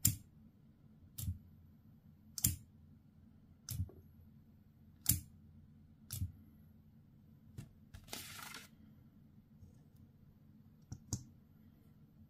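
A run of sharp mechanical clicks, seven in a row about one every second and a quarter, then a short rustle about two-thirds of the way through and a quick double click near the end.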